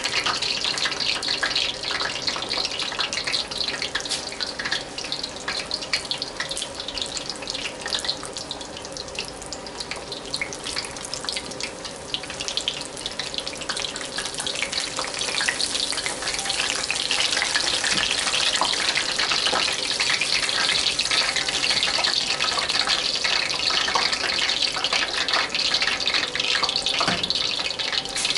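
Egg rolls deep-frying in hot oil: a dense, steady crackling sizzle that grows louder about halfway through as fresh, unfried egg rolls go into the oil.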